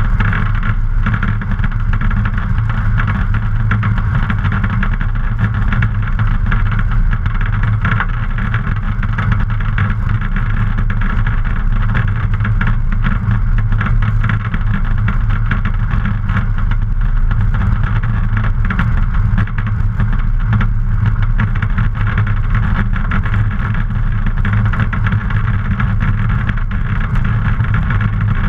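A Luscombe light aircraft's piston engine and propeller running steadily, heard close to the propeller.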